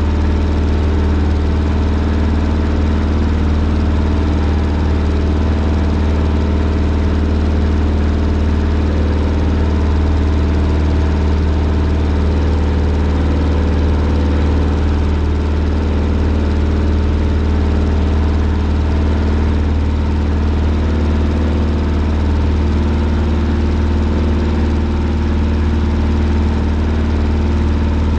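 Single-engine Cessna's piston engine and propeller running steadily in level flight, heard from inside the cabin as an unchanging drone with a strong low hum.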